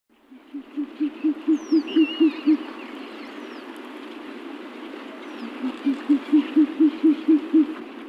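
An owl hooting in two fast runs of low, evenly spaced hoots, about four a second. The second run starts a little past the middle.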